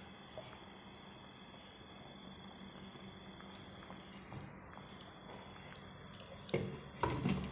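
Crickets chirping steadily in the background. Near the end, a glass pot lid is set onto the cooking pot with two clattering knocks about half a second apart, the second one longer.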